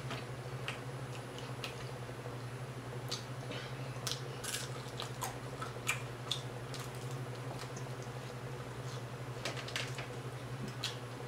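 Eating sounds of crispy fried whole tilapia being chewed and picked apart by hand: irregular small crunches and mouth clicks. A steady low hum runs under them.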